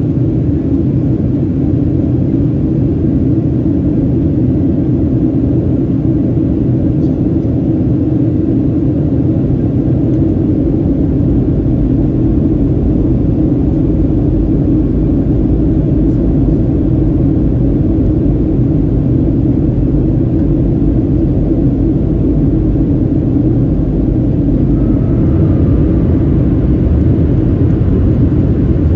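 Steady cabin roar of a Boeing 737-700 in flight, heard from a window seat over the wing: the low rumble of its CFM56 engines and the rushing air. It grows slightly louder near the end.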